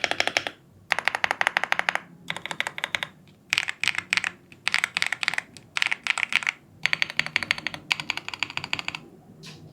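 Leobog Hi98 mechanical keyboard with White Dragon switches and full foam being typed on quickly, in rapid runs of keystrokes broken by short pauses. It thins to a few single key presses near the end.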